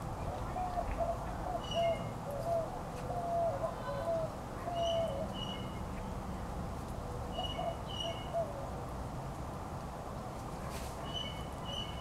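Birds calling: a run of short, low whistled notes over the first five seconds and again around seven to eight seconds in, with pairs of higher chirps now and then.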